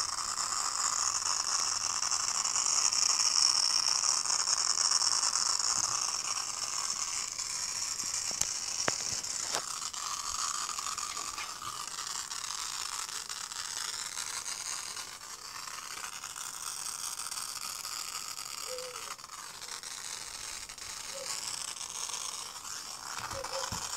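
Strange noise from an Asus computer that will not switch on: a steady hiss whose high pitch wavers, with a few sharp clicks around nine to ten seconds in. It gets somewhat quieter in the second half.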